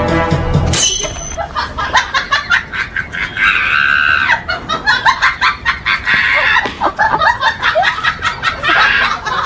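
A rooster squawking during a scuffle with a dog while a person laughs in quick bursts, with longer shrill cries about three and a half and seven and a half seconds in.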